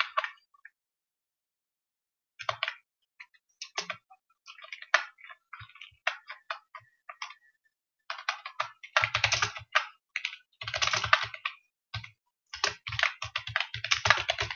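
Typing on a computer keyboard. For the first several seconds there are only a few scattered clicks and key presses, then about eight seconds in comes a fast run of typing.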